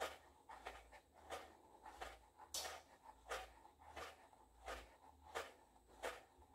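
Faint, regular soft taps, about three every two seconds: a suede high-heeled pump dangling from a pantyhose-clad foot, slapping back against the heel with each bounce.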